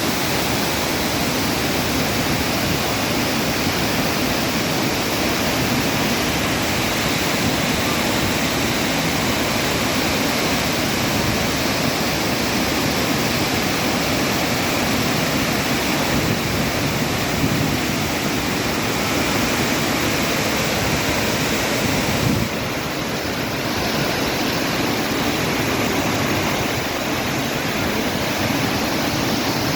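Waterfall rushing: a steady, even roar of falling water at Jajce's Pliva Falls, which dips slightly and grows a little duller about 22 seconds in.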